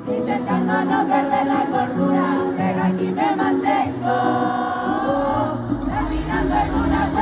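Spanish-language pop song: sung vocals with layered backing harmonies over a bass line, one note held for about a second midway.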